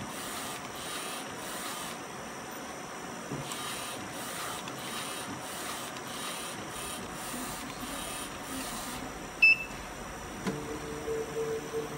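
UV flatbed inkjet printer at work, its print-head carriage sweeping back and forth with a fast, regular mechanical pulsing. About nine and a half seconds in there is a single short sharp sound as printing ends, and background music with held notes comes in about a second later.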